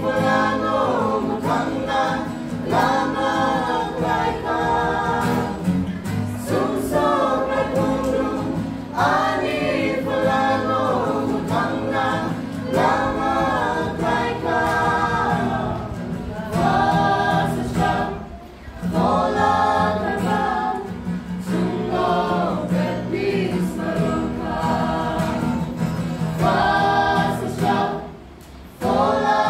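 Small mixed group of women and men singing a Kokborok gospel song in harmony, with acoustic guitar accompaniment. There are short breaks between phrases about two-thirds of the way through and again near the end.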